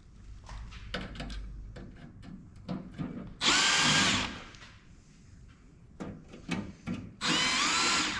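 Power drill-driver running in two short bursts of about a second each, its motor whine rising and falling, backing screws out of the printer's case, with clicks and knocks of handling between.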